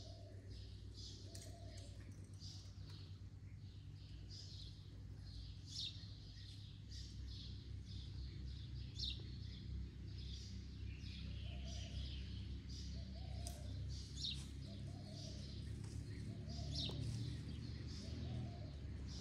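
Small birds chirping, with many short high chirps throughout. A lower rounded call repeats about once a second near the start and again through the second half. A steady low rumble of background noise runs underneath.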